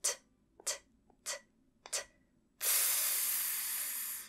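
A woman's voice making four crisp "t" sounds about two-thirds of a second apart, then a held "s" hiss of about a second and a half that stops just before the end. This is /s/ being shaped from /t/, the t-t-t sound exploded into a long s.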